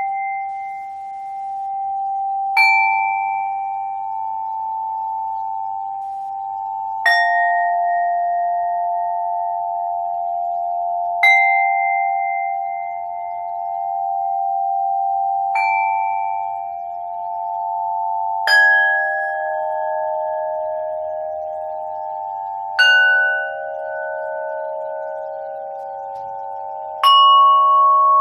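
A bell-like instrument struck about every four seconds, seven notes in all, each a pure ringing tone that rings on under the next so the notes pile up into a sustained, gently wavering chord. The pitch changes from strike to strike and steps lower toward the end.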